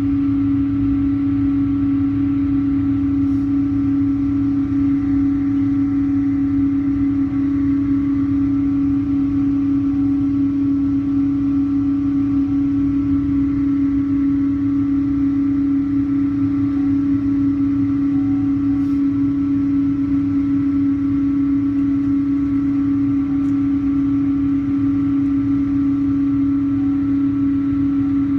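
Steady cabin drone of a Boeing 777-200 taxiing, heard from inside the cabin: one strong unchanging hum with fainter higher tones over a low rumble.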